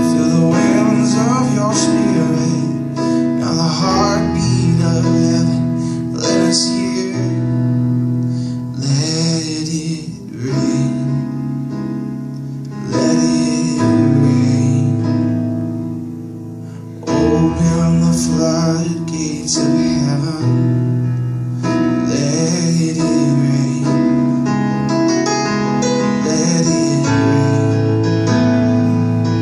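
A man singing while playing an electronic keyboard with both hands, held bass notes under the melody. The playing thins to a softer passage in the middle, then comes back in full about seventeen seconds in.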